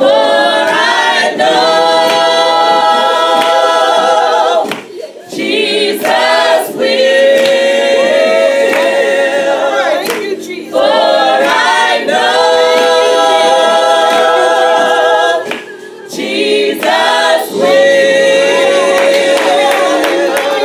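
A women's choir singing a gospel song in phrases of long held notes, with brief pauses between the phrases about five, ten and sixteen seconds in.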